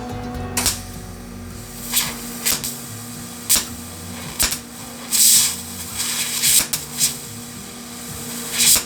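A string of short, sharp metal-fabrication noises, about nine separate bursts with the longest about five seconds in, from work on a steel mounting bracket. They play over a steady background music bed.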